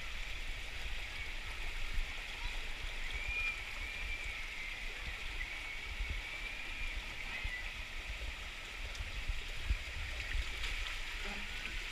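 Water rushing steadily down a waterslide chute, with an uneven low rumble underneath and a faint wavering high-pitched sound in the middle.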